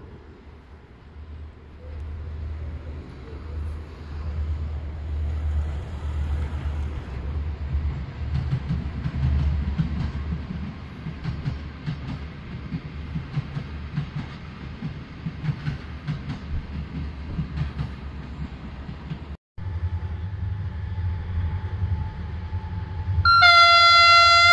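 Diesel-electric locomotive hauling a passenger train past: a steady low engine drone with wheels clattering over the rails. After a brief break, a loud locomotive horn blast begins near the end.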